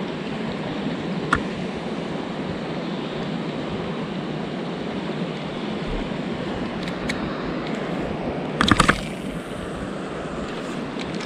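Steady rushing of shallow flowing river water. A single sharp click comes about a second in, and a brief clattering burst of clicks comes near the end from the spinning rod and reel being handled.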